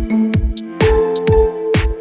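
Electronic background music with a steady kick-drum beat about twice a second under sustained synth notes.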